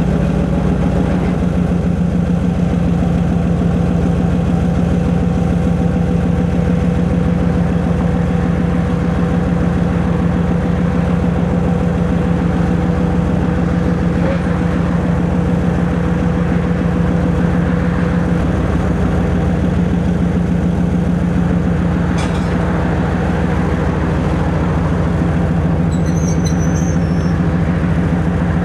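M62 diesel locomotive's two-stroke V12 diesel engine (Kolomna 14D40) idling with a steady, deep, even rumble.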